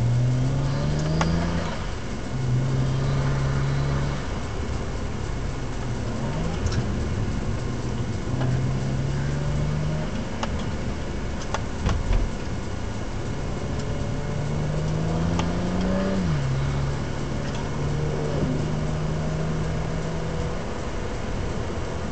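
BMW 135i's N54 twin-turbo straight-six heard from inside the cabin, pulling through the curves. The engine note rises and then drops sharply several times as the car accelerates and lifts off or shifts. A few short knocks come about halfway through.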